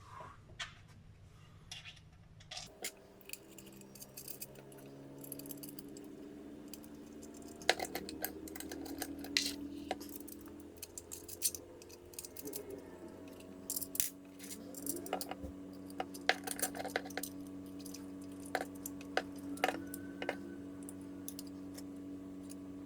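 Scattered light clicks and taps of 3D-printed plastic parts and small metal screws being handled, as a bottom plate is snapped on and screwed down. Under them, soft sustained background music comes in about two and a half seconds in.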